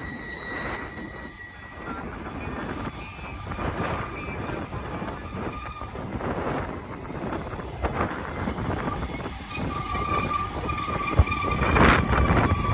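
Steel wheels of a BNSF double-stack container train squealing as it rounds a curve, high steady squeal tones that change pitch several times over the rolling rumble of the cars, which grows louder near the end.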